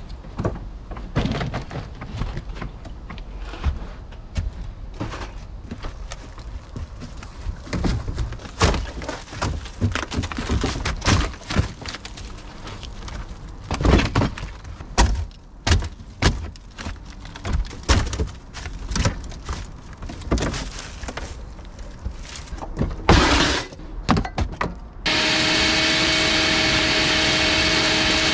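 Irregular knocks, thuds and clatter as boat panels and debris are pulled out and moved about. About 25 seconds in, a Craftsman wet/dry shop vacuum switches on and runs steadily with a whine, cleaning out the bilge.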